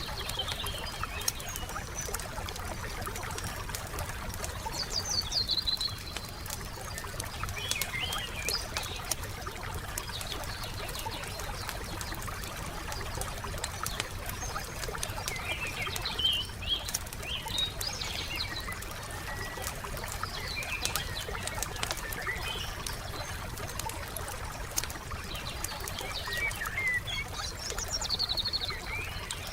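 Wood fire crackling, with irregular sharp pops and snaps throughout, over birds chirping and trilling in short phrases every few seconds.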